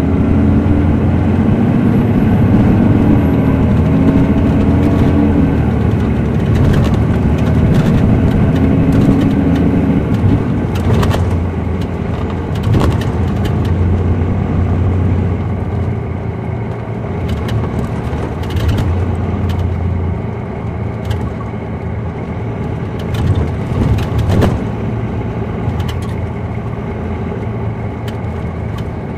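A 2007 MCI D4500CL coach's Caterpillar C13 diesel heard from inside the cabin, its note climbing over the first few seconds and then settling, running quieter after about twenty seconds. Scattered sharp knocks and rattles from the bus body come through the engine sound.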